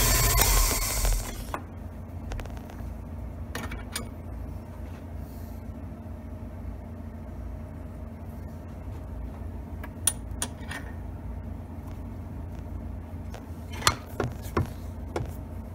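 Van Norman valve refacer's grinding motor running, then switched off about a second and a half in. After that come scattered sharp metal clinks and taps as the machine is handled and adjusted with a wrench, over a low steady hum.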